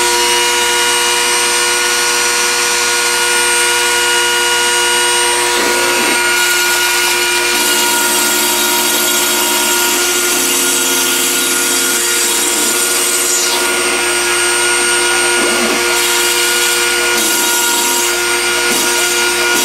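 CNC router cutting foam: the spindle motor whines steadily over the hiss of the bit in the foam. The axis stepper motors add shorter tones that glide up and down as the head traces the circles and squares, and these shift several times.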